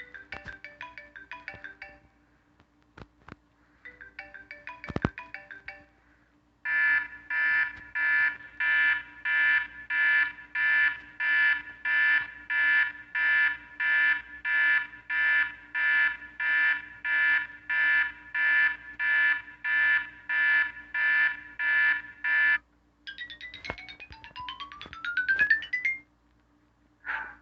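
Classic iPhone/iPod ringtones playing through an iPod touch's small speaker: a short mallet-like melody twice, then a rapidly pulsing electronic alarm tone beeping about twice a second for roughly sixteen seconds, then a quick rising run of tones.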